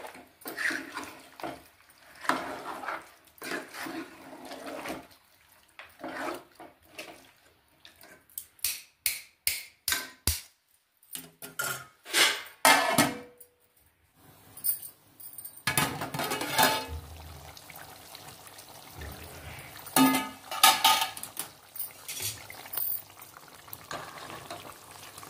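A steel spoon stirring chicken curry in an aluminium pot: repeated scrapes and clinks of metal on metal, in quick irregular strokes.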